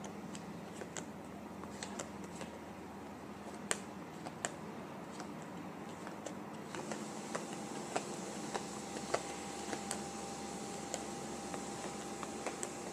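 Playing cards being dealt one at a time onto a wooden tabletop: light, irregular snaps and slaps of card on card and card on wood, over a steady background hum.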